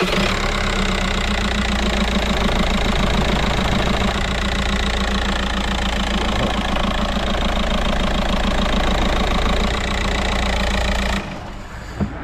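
VW Golf Mk5 1.9 TDI four-cylinder diesel engine running at idle with a rhythmic knocking judder, the sign of a failed dual-mass flywheel. It cuts off suddenly about a second before the end.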